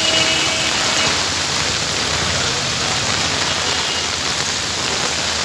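Heavy rain pouring down steadily onto a flooded street, a dense even hiss.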